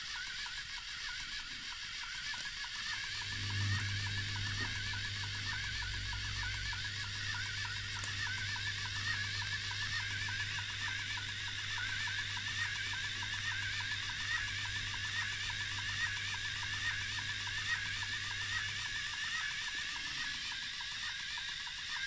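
LEGO Technic motors driving a bank of pneumatic pumps in a steady mechanical whirr with a fast, wavering high edge. A lower hum joins about three and a half seconds in and drops out around nineteen seconds.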